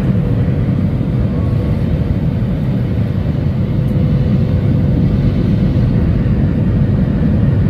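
Jet airliner cabin noise heard from a window seat in flight: a loud, steady rumble with a faint steady hum running through it.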